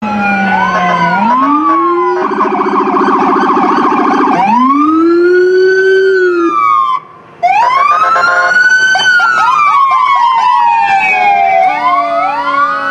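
Several emergency-vehicle sirens sounding at once, their wails rising and falling over one another, with a fast yelp from about two to four and a half seconds in. The sound cuts out for a moment about seven seconds in.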